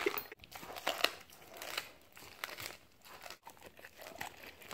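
Siberian husky gnawing and licking a frozen raw chicken quarter on a plastic dog-food bag, the bag crinkling under its mouth and paws with irregular crunches and clicks.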